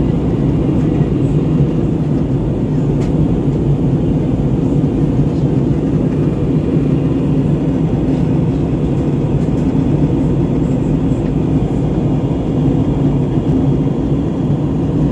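Steady drone of a jet airliner's cabin in flight: engines and rushing air, heard from a window seat, even and unchanging.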